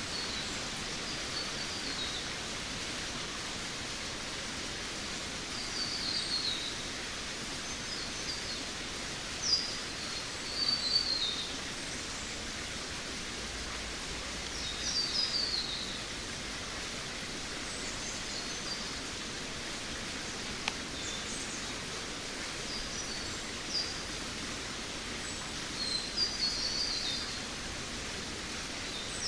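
Jungle ambience: a steady hiss fills the background while a bird calls again and again in short, quick phrases of chirps that fall in pitch, about once every three to five seconds.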